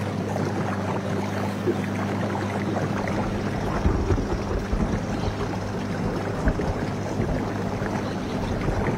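A riverboat's motor running steadily with a low, even hum. A deeper rumble joins in about three seconds in.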